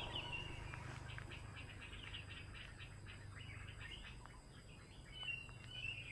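Faint birds chirping in the background: short high whistled notes near the start and again near the end, with a quick run of rapid chirps in between, over a steady low hum.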